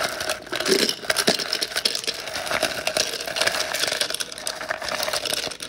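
Ice cubes clattering and clinking against each other, a plastic tub and a glass jar as they are handled and dropped in by hand, a steady run of small clicks.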